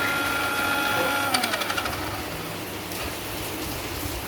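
A small electric motor whining steadily, then winding down and stopping about a second and a half in, followed by a quick run of clicks and faint rattling.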